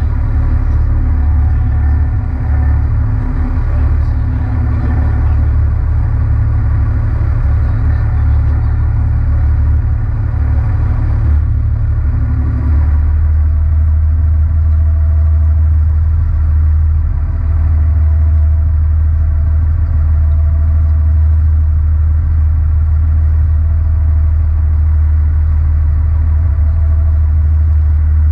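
Fishing boat's engine running with a steady low drone and a hum of several pitched overtones above it; about halfway through the note changes and the low hum becomes steadier and stronger.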